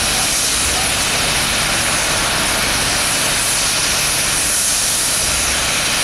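LMS Black 5 steam locomotive's safety valves blowing off: a steady, loud roar of escaping steam, the sign of the boiler at full working pressure.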